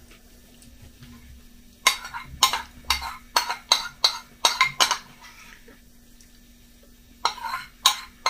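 A metal spoon clinking against a ceramic bowl while scooping cereal: a quick run of about nine clinks from about two seconds in, a pause, then more clinks near the end.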